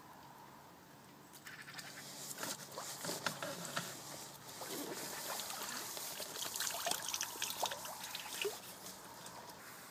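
A small hooked carp splashing and thrashing at the water's surface as it is drawn over a landing net, with water sloshing around the net. The splashing starts about a second and a half in and comes as a quick run of small splashes.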